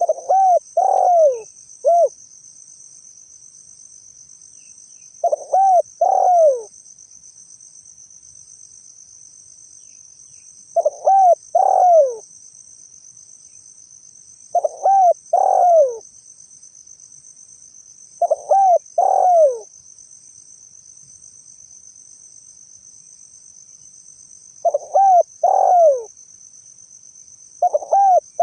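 Spotted dove cooing: seven phrases, each two or three short rising-and-falling coos, repeated every few seconds. A steady high-pitched trill runs underneath.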